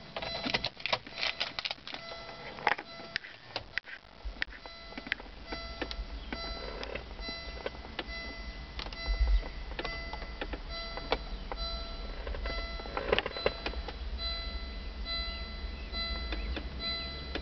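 Power Acoustik PAVN-7210 touchscreen navigation head unit starting up: short repeating electronic tones and regular ticking clicks, with a low rumble beneath from about four seconds in.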